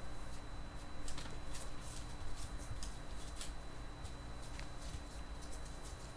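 Dachshund puppies scrabbling about on newspaper: scattered light rustles and crinkles of paper under their paws, over a faint steady hum.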